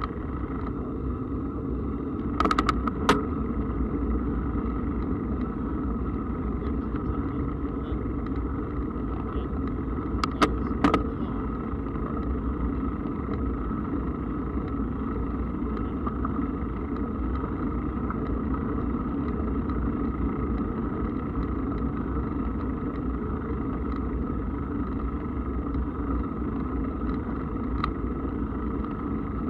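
Steady rumble and rush of riding noise, wind on the camera microphone and mountain-bike tyres rolling on a path, with two quick clusters of sharp clicks about two and a half and ten and a half seconds in and one more near the end.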